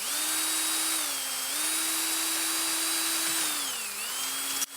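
Power drill boring a hole into a 3D-printed plastic duck mold. The motor's whine runs steadily and dips in pitch twice as the bit works through the plastic, then cuts out briefly near the end.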